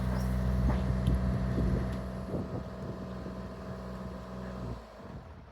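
Diesel engine of a Bobcat compact excavator running steadily while scattered crunches and knocks come from garage debris being broken up. The engine sound drops off sharply near the end.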